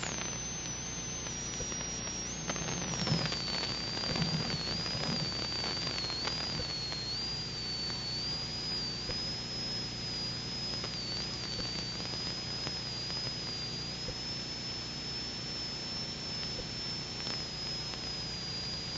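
A thin, high electronic whine that drifts slowly in pitch, over a steady low hum and hiss: noise of the dashcam recording itself, with no clear sound of the chase.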